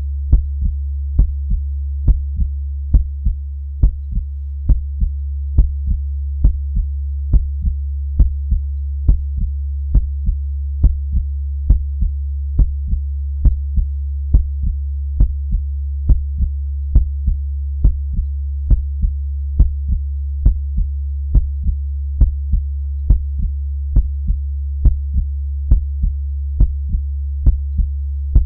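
Slow, steady heartbeat, each beat a lub-dub of a stronger and a weaker thump, over a constant low hum.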